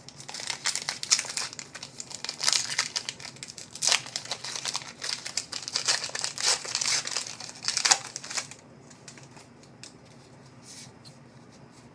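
A trading-card pack wrapper being torn open and crinkled for about eight and a half seconds, then only a few faint clicks.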